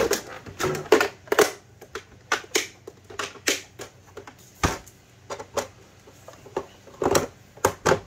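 A sewing machine's extension table being handled and fitted onto the machine bed: a run of irregular clacks and knocks, with a heavier thump about four and a half seconds in.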